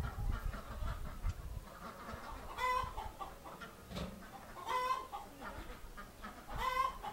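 Chickens clucking, with three louder drawn-out calls about two seconds apart and softer clucks between them. Low wind rumble on the microphone early on.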